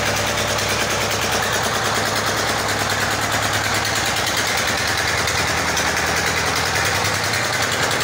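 A freshly rebuilt LD1115 single-cylinder diesel ('peter' engine), fitted with a new crankshaft and ring set, running steadily just after being started.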